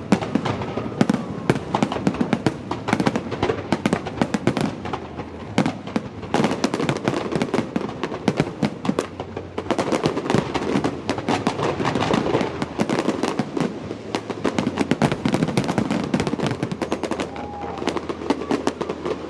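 Fireworks going off in rapid succession: a dense, continuous run of bangs and crackles.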